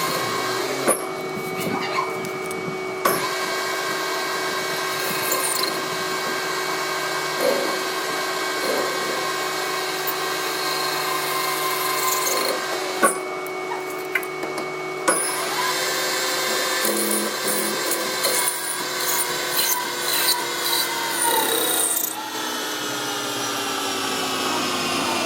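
An electric power tool's motor running steadily with a whine, with a few sharp clicks along the way; its pitch sinks slightly in the last few seconds as it slows.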